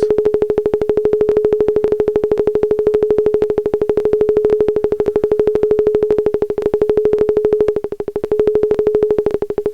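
Modular synthesizer patch through a resonant filter: a steady mid-pitched tone pulsing rapidly, about a dozen beats a second, with the filter's resonance turned up and its frequency driven by a mix of control voltages.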